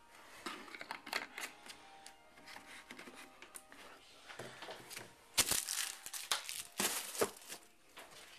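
Rustling and crinkling with scattered clicks, as fabric softener and detergent are handled at a washing machine's dispenser drawer, with a few sharper knocks a little past halfway.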